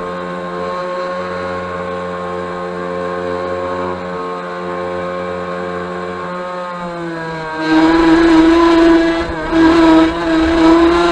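Onboard sound of a small radio-controlled speedboat's motor running with a steady whine. About seven and a half seconds in it turns louder and rougher.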